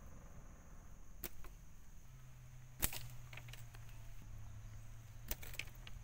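A few sharp clicks and snaps of sticks and twigs being handled while a bent-stick snare trap is set, the loudest about three seconds in, over a steady high whine.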